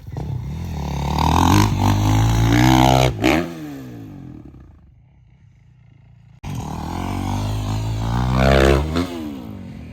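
Dirt bike engine revving hard as it approaches, then its pitch drops steeply as it passes and fades away. After an abrupt cut a second run follows, rising and then falling the same way.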